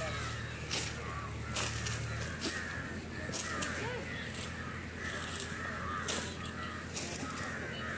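Crows cawing, short harsh calls repeating about once a second or so, over a background murmur of distant voices.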